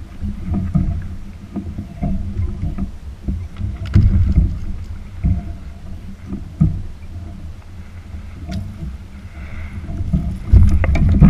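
Handling noise aboard a plastic fishing kayak: a low, uneven rumble with scattered knocks and bumps as a caught triggerfish, the rod and gear are handled. The knocks cluster and grow loudest near the end.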